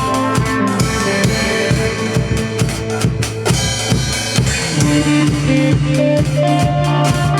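A band playing an instrumental passage with no vocals. A drum kit keeps a steady beat under held pitched notes from the other instruments.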